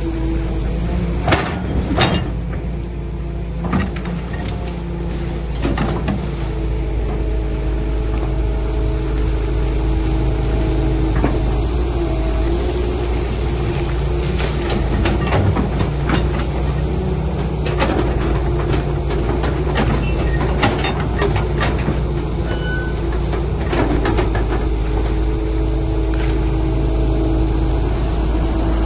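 Excavator's diesel engine running steadily with a whining tone that wavers slightly in pitch, broken by repeated sharp metallic knocks and clanks, several of them close together about halfway through.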